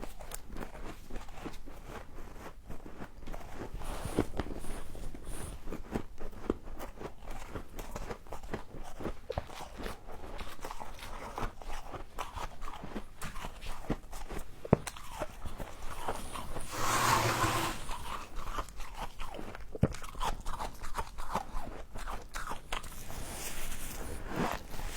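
Close-up crunching and chewing of frost: a dense run of small crackles as it is bitten and chewed, with one louder, harsher crunch about two-thirds of the way through.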